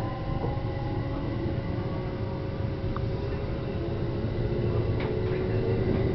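JR West 321 series electric commuter train gathering speed, heard from inside the front car. A low running rumble grows slowly louder, with steady tones over it and a motor whine that slowly rises in pitch.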